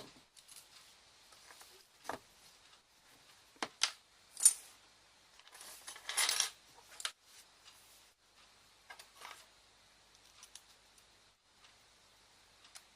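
Small hard objects clicking and clattering on a hard surface: scattered sharp clicks, a louder one about four and a half seconds in, and a longer rattle about six seconds in.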